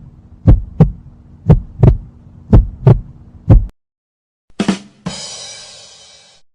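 Heartbeat sound effect: paired deep lub-dub thumps about once a second, stopping about three and a half seconds in. Then a single thump and a bright, crash-like hiss that fades away.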